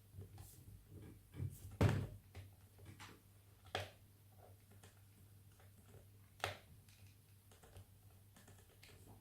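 A few sharp knocks and clicks from handling a laptop and small tools on a work surface, the loudest a little under two seconds in, over a low steady hum.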